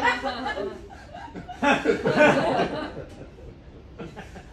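Audience laughing and chuckling in two waves, the louder one about two seconds in, then dying down.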